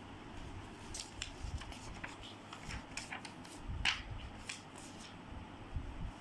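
Printed paper sheets rustling and crackling as they are handled and turned: a run of short crisp crackles over about four seconds, loudest about two-thirds of the way through.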